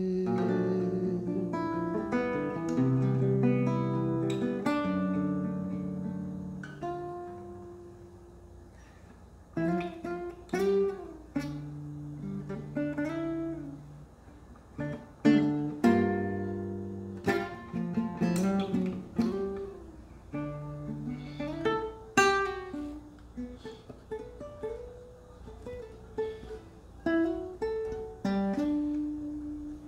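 Acoustic guitar played solo as an instrumental interlude: picked melody notes over bass notes, with occasional strummed chords. It softens about a quarter of the way in, then picks up again.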